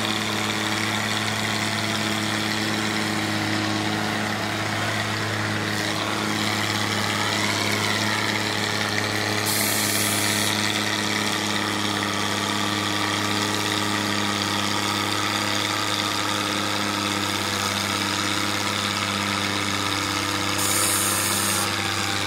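Cockshutt tractor's engine running steadily under load as it drags a weight-transfer sled in a tractor pull, holding an even pitch.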